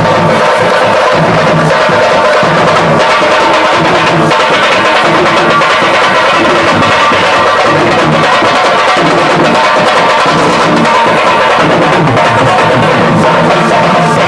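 Loud music with drums and percussion, playing steadily.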